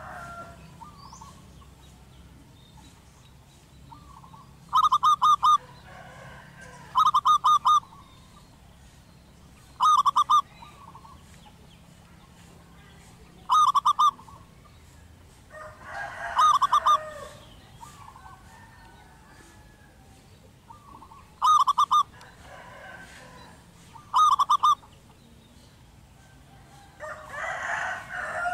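Zebra dove cooing its song: seven short phrases of rapid, repeated notes, each under a second long, a few seconds apart.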